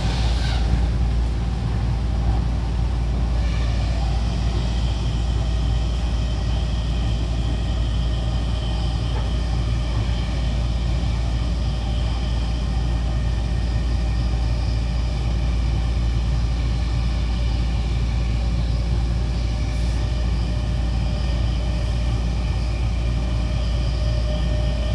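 Interior running sound of an E257 series 2000-subseries electric train cruising: a steady low rumble of wheels on rail. From about three seconds in, steady high whines of the Mitsubishi IGBT-VVVF traction equipment hold an even pitch over it.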